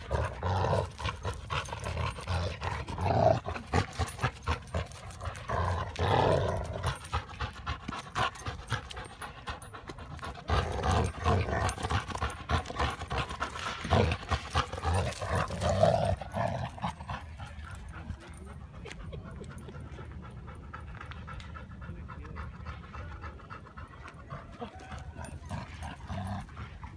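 Two Labrador retrievers play-fighting over a tennis ball, growling and panting in fun. The noises are loud and irregular for the first two-thirds, then die down to quieter panting.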